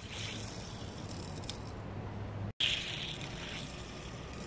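Die-cast toy car rolling down an orange plastic Hot Wheels track, a light rolling rattle over a low background hum, with a short break in the sound about halfway through.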